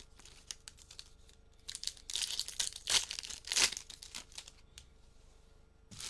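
Trading-card pack wrappers crinkling and tearing as packs are opened by hand, with a few loud crinkly rustles about two to four seconds in and light ticks of handling around them.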